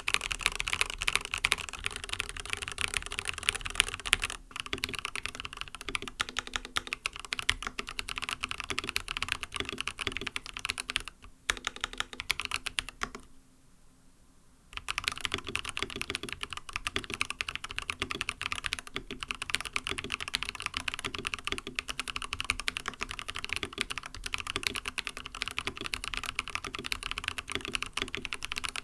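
Continuous fast typing on an mStone Groove T keyboard with lubed, non-clicky MMD Coral switches and a silicone plate foam: a dense run of keystrokes. It breaks off briefly about 4 and 11 seconds in, and stops for about a second and a half near the middle.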